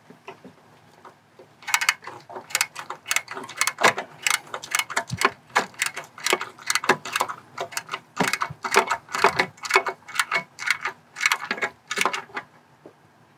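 Hand ratchet on a swivel clicking in quick runs of strokes as bolts threaded into aluminium are snugged down. The clicking starts about two seconds in and stops near the end.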